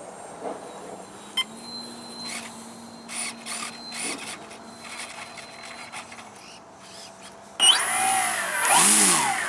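The motor of a radio-controlled P-47 model plane starts abruptly near the end with a high whine and revs up and back down, a run-up to check that it works after the repair. Before that, only faint clicks and a low hum.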